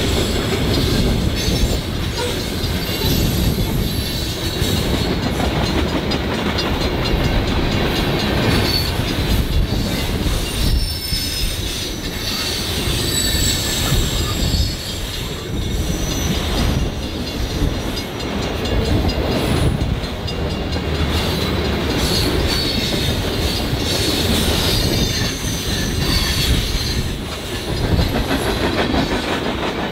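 A freight train's cars rolling past, steel wheels rumbling and clicking over the rails, with high-pitched wheel squeal that comes and goes.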